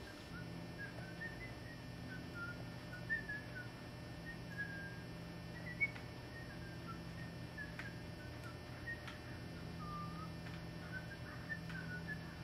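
Small birds chirping in short calls that slide up and down, scattered throughout, over a steady low hum, with a few sharp clicks, the loudest about six seconds in.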